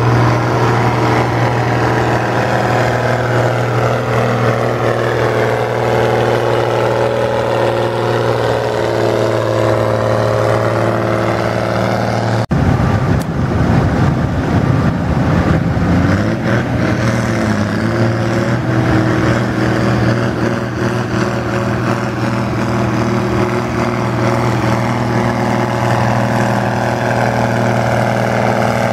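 Vintage Ford (Fordson Major-type) diesel tractor engine working hard under load as it pulls a weight sled, a steady drone whose pitch slowly sags as the pull goes on. The sound breaks off abruptly for an instant about halfway through.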